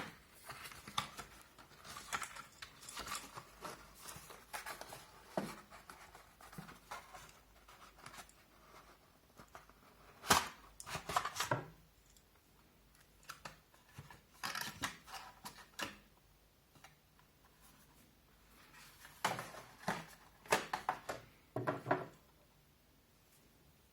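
Clicks, scrapes and rustles of a computer case fan being handled and fitted into the top of a PC case, in several short clusters. The busiest come about ten seconds in and again near the end.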